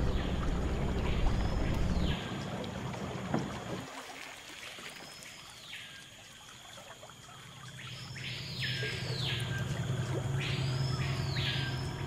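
15 hp Yamaha outboard motor running steadily on a small boat. It fades out about two to four seconds in and comes back in the second half. Over it are river and jungle sounds: a call that rises and falls in pitch, repeated about six times, and a faint steady high drone.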